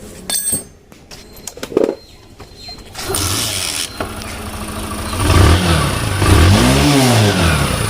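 Motorcycle engine starting about three seconds in, then revved up and down a couple of times. A new timing chain tensioner has just been fitted, and the engine runs smooth with no bad noise from the cam chain.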